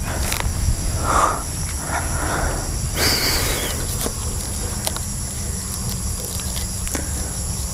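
Outdoor ambience dominated by wind rumbling on the microphone, with a steady high insect drone and a few bursts of rustling about one, two and three seconds in.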